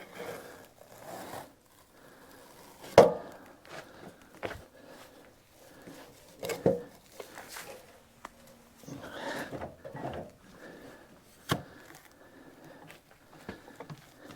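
A heavy log being slid and rolled along a sawmill log deck, scraping with three sharp knocks, the loudest about three seconds in. The deck is coated with silicone, so the log moves slickly.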